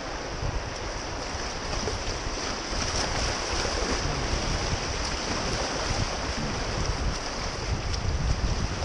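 Strong wind buffeting the microphone in uneven gusts, over a steady rushing hiss of river water.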